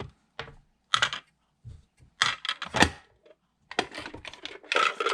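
Small plastic toy kitchen pieces clicking and clattering as they are handled and set in place, in several short bursts of taps.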